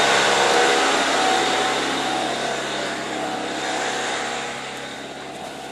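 Electric air compressor running, a steady motor hum with hiss, building air pressure for a locomotive horn; it grows gradually quieter.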